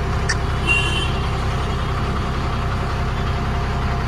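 Diesel truck engine idling steadily, with a brief high squeak about a second in.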